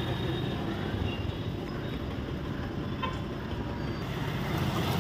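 Steady rumble of passing road traffic, with a short click about three seconds in.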